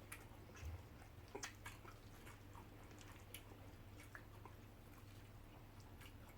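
Faint, scattered clicks and smacks of people chewing food over near silence, with a steady low hum underneath.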